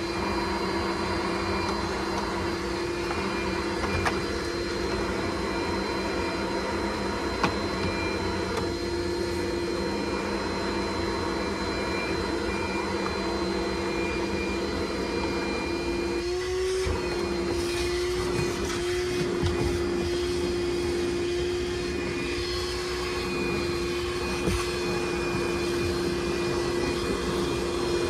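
DeWalt wet/dry shop vacuum running steadily, with a constant motor whine; its pitch steps up slightly about 16 seconds in.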